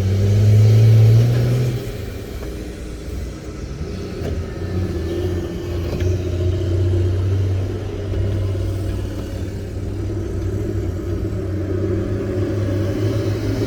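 Excavator diesel engine working under load. It revs up loudest over the first two seconds with a rising pitch, then runs on at a steady rumble that rises and falls a little.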